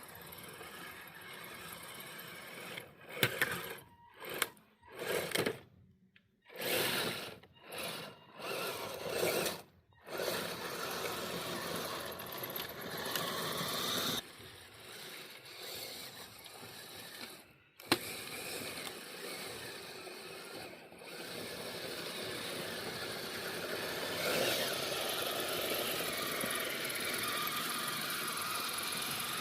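Kyosho Blizzard RC snowcat's electric motor and metal tracks running, first in about six short throttle bursts and then more steadily, with one sharp click about two thirds of the way in.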